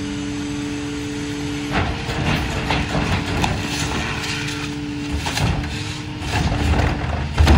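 Garbage truck engine running steadily with a hydraulic hum while a rear-loader's cart tipper lifts and empties a wheeled trash cart into the hopper. Trash and the cart clatter irregularly as it tips, with heavy bangs near the end as the cart is knocked out at the top of the dump.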